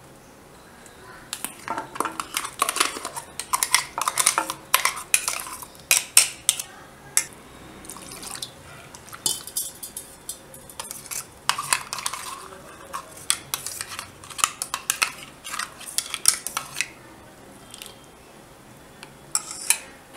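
A steel spoon scraping and clinking against a steel mixer-grinder jar and bowl while thick ground dal paste is scooped out. The scrapes and knocks come in irregular runs with short pauses, and there is a single knock near the end.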